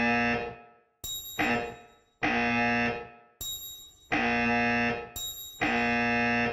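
Sound effects of a high bell ding followed by a harsh low buzzer, alternating about five times in a row. Each buzz starts sharply and fades out after about a second.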